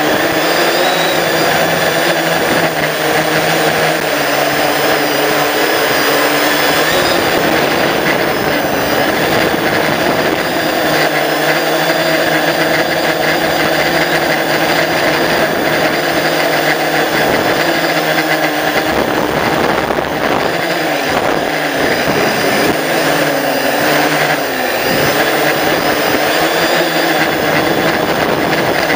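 Drone's electric motors and propellers buzzing loudly and steadily in flight, heard close up from its onboard camera, the pitch wavering up and down as the motor speeds change.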